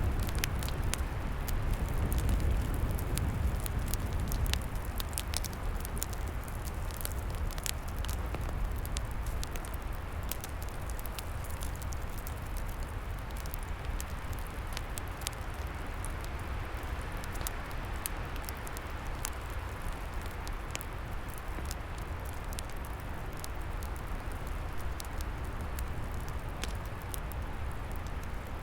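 Wood fire crackling, with many sharp irregular pops and snaps, over a steady low rushing of wind in the trees.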